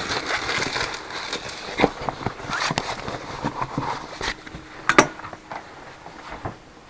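Rummaging through bags and packets: rustling with scattered clicks and knocks, the sharpest knock about five seconds in.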